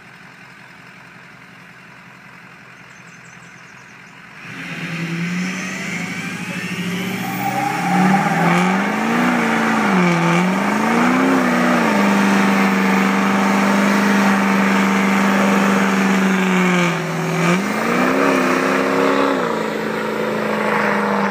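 Ford 6.0L Power Stroke V8 turbodiesel in a burnout, rear tyres spinning in a cloud of smoke. It starts low and quiet, then about four seconds in the engine revs up hard and loud, its pitch rising and falling a few times. It holds steady at high revs for several seconds, then dips and wavers again near the end.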